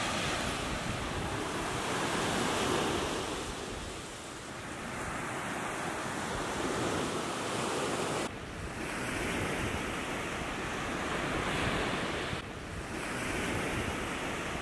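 Small waves breaking and washing up a sandy beach, with wind buffeting the microphone. The surf swells and eases, and the sound shifts abruptly about eight and twelve seconds in.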